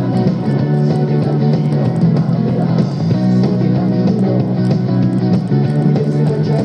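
Live rock band playing an instrumental passage of a song, led by guitar with bass underneath and no singing.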